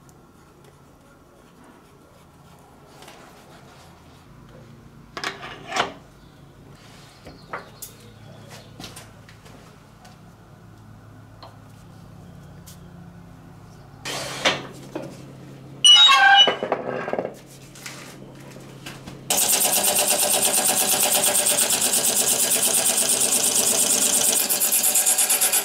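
Faint low hum with scattered knocks and clatter of tools being handled, then about 19 seconds in a loud, steady power-tool noise starts suddenly and keeps going.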